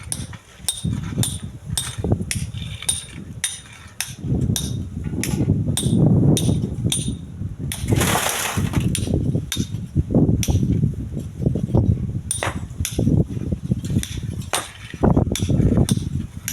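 Strong wind buffeting the microphone with a heavy low rumble, overlaid by irregular sharp knocks and clinks a few times a second. A brief broad rushing gust comes about eight seconds in.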